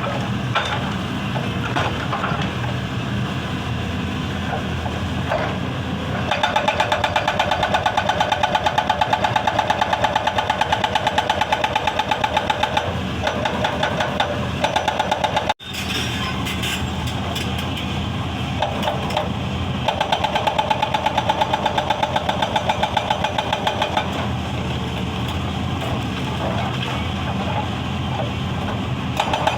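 Excavator-mounted hydraulic breaker hammering stone in runs of rapid, even blows lasting several seconds, over the excavator's diesel engine running steadily between runs. The sound drops out for an instant about halfway.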